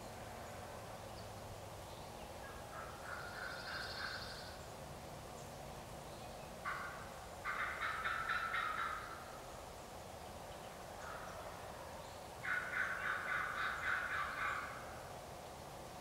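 Wild turkey gobbler gobbling faintly, twice: two rattling runs of rapid notes about two seconds each, roughly seven and twelve seconds in. The gobbler is answering the hunter's calls from the same spot rather than coming in.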